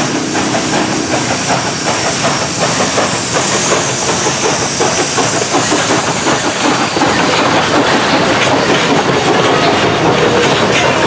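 Steam locomotive passing close with a steady rhythm of exhaust chuffs and steam hissing from its cylinders, then passenger coaches rolling by with the clickety-clack of wheels over rail joints.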